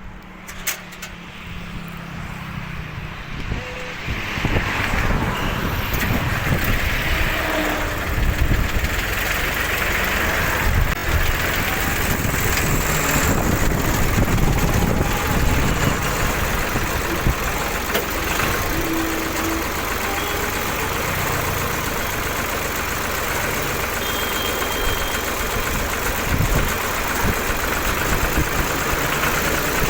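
An engine running steadily, growing louder about four seconds in and then holding steady.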